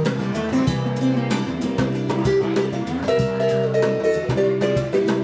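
Live band music: acoustic guitar playing over conga and cymbal percussion with a steady beat.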